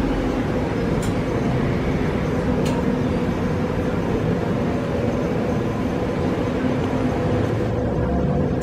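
Steady mechanical hum over a low rumble, with two faint clicks in the first few seconds.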